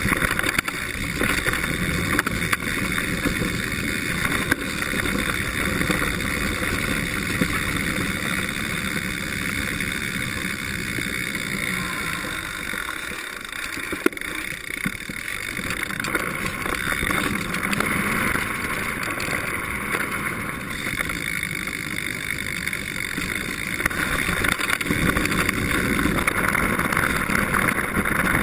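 Mountain bike rolling fast down a dirt trail: a steady rush of wind on the microphone mixed with tyre and bike rattle noise. One sharp knock about halfway through, and the noise grows louder in the last few seconds.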